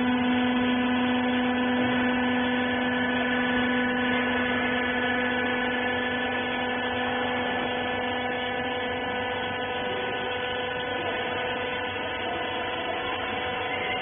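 Hydraulic power unit of a horizontal wiper bagging baler running, a steady electric-motor-and-pump hum with a whine. Its deepest tone fades a few seconds in.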